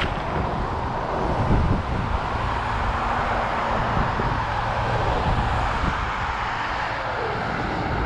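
Steady rush of passing road traffic, tyre and engine noise, with wind rumbling on a moving microphone.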